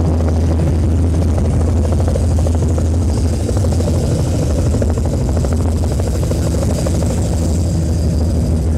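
A loud, steady low rumble with a constant deep hum and no distinct separate sounds.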